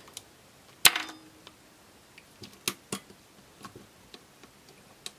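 A sharp plastic snap about a second in, with a short ring after it, then several light plastic clicks: an action figure's spring-loaded weapon being worked by hand to make it shoot.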